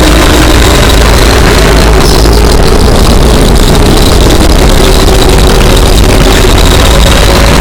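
Emergency Alert System alarm audio, boosted until it is a steady wall of clipped, distorted noise, with faint steady tones barely showing through the roar.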